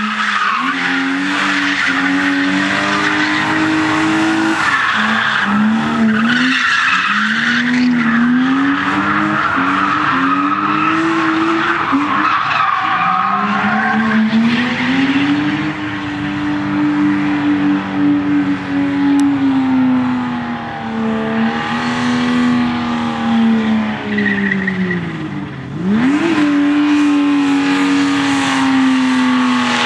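BMW E30's 2.7-litre straight-six held at high revs during burnouts and drifts, the revs rising and falling over and over while the spinning rear tyres squeal. About 25 seconds in the revs drop sharply and then climb back.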